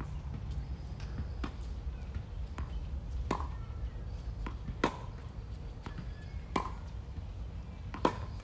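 Tennis balls struck by racquets in a rally: sharp pops about every second and a half, with fainter knocks between them.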